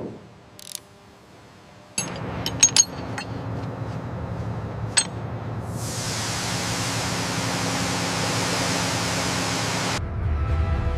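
A few sharp metallic clinks over a low rumbling background, then a loud, steady hiss that starts about six seconds in and cuts off suddenly near the end, where music begins.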